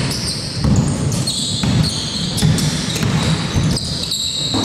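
Basketball game play on an indoor court: the ball bouncing and hitting the floor, with short high squeaks from sneakers on the court.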